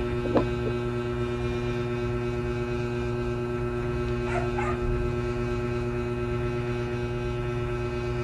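Steady electrical hum with several fixed tones, and two brief high calls, one about half a second in and one about four and a half seconds in.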